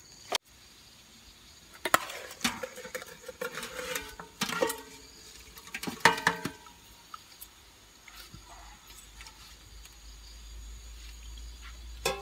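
Aluminium steamer pot and lid clanking several times as fish are laid on the perforated steamer tray, some knocks ringing briefly. A low steady rumble rises in the last few seconds.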